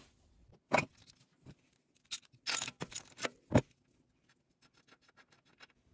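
Scattered sharp metallic clicks and clinks, about half a dozen in the first four seconds, as the spark plug cap is pulled off a motorized bicycle's two-stroke engine and hand tools are handled to remove the plug.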